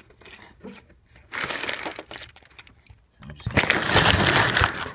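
Cardboard shoebox and tissue paper rustling and crinkling as the box is opened by hand: a short burst about a second in, then a louder, longer rustle in the last second and a half.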